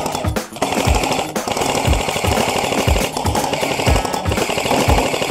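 Loud background music with a steady beat of about two drum hits a second over a dense, driving wall of sound.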